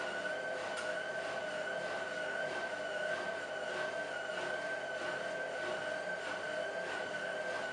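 Hotpoint 1000 De Luxe WM23W Aquarius Ultima washing machine on its final spin, the drum turning at a steady speed with a steady high-pitched motor whine over the rushing of the spinning drum.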